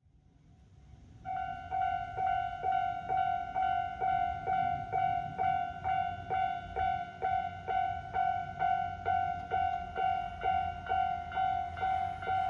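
Japanese railway level-crossing warning bell ringing, an electronic 'kan-kan' of evenly repeated ringing tones, about two a second, starting about a second in. A steady low rumble runs underneath.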